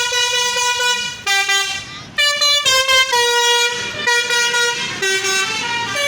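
Indonesian tour bus's 'telolet' musical air horn playing a tune: one note held for about a second, a brief break about two seconds in, then a run of short notes stepping up and down in pitch.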